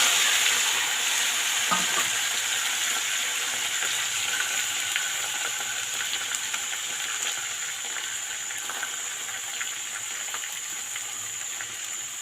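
Chopped onion, potato and tomato frying in hot oil in a large kadai, sizzling loudly at first and slowly dying down as the vegetables go in, with a few light clicks of stirring.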